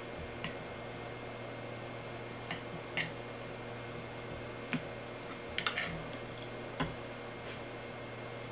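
A plastic spoon clicking and tapping against a ceramic bowl a handful of times while stirring cooked ground beef, over a steady low background hum.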